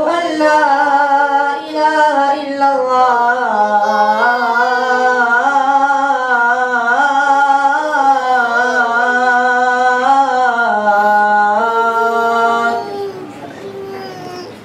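A male voice calling the azan, the Islamic call to prayer, in one long melismatic phrase that winds up and down in pitch and stops near the end.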